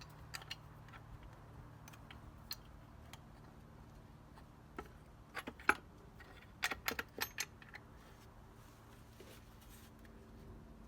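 Scattered light metallic clicks and clinks of a bolt, washer and nut being handled and fitted through a wooden block, with a quick cluster of sharper clicks in the middle.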